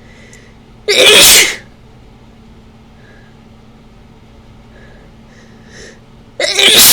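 Two loud human sneezes about five and a half seconds apart, the second coming near the end. They are set off by sniffing ragweed and chhinkni, a herbal sneezing powder.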